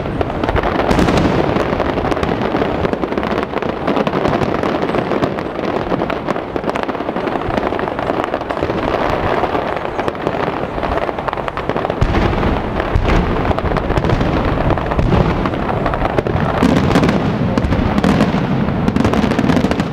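Aerial fireworks display: shells bursting in rapid, overlapping succession, a continuous barrage of booms that grows deeper and heavier about twelve seconds in.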